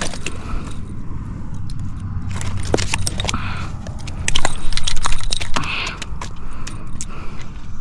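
Handling sounds of unhooking a freshly landed striped bass on rock: scattered clicks, clinks and scrapes of pliers and the metal lure, with the fish flapping against the rock. The clicks come thickest and loudest about four and a half to five and a half seconds in.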